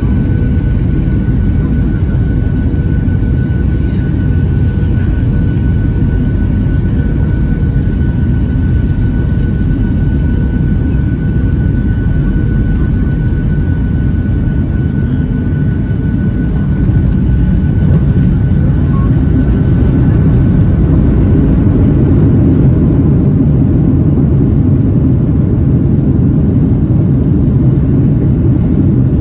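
Jet airliner heard from inside the cabin during landing: a steady low rumble of turbofan engines and rushing air, with a faint high whine, growing louder a little past halfway as the plane is on the runway.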